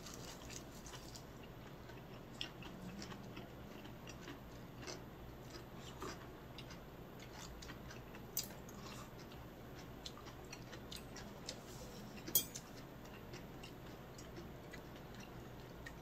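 Quiet eating sounds: chewing, with scattered light clicks of a metal spoon and utensils against dishes and a few sharper clinks.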